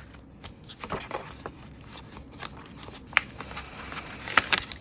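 Album inclusions (cards and their plastic and paper packaging) being handled: light rustling with scattered sharp clicks, the loudest about three seconds in and a quick cluster near the end.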